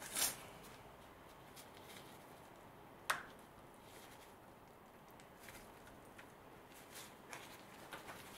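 Quiet handling of a plastic electrical connector by rubber-gloved fingers, with a sharp click just after the start and another about three seconds in: the plug being worked off the car's A/C refrigerant pressure sensor.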